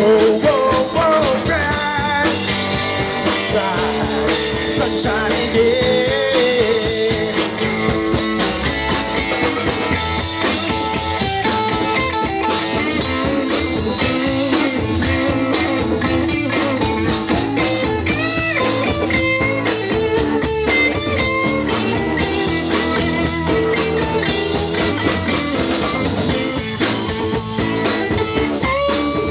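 Live rock band playing an instrumental stretch: electric guitars carrying lead lines with bent notes over bass guitar and a drum kit.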